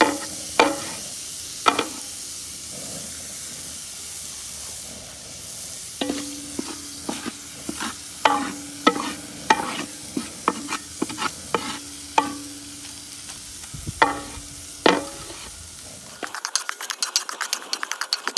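Frozen Cajun trinity of onion, celery and bell pepper sizzling in bacon grease in a cast iron jambalaya pot, stirred and scraped with a wooden paddle. The paddle's strokes come as sharp knocks, some with a short ringing tone, and the sizzle runs alone for a few seconds after the first few. Near the end the sound is sped up into a fast, dense clatter of stirring.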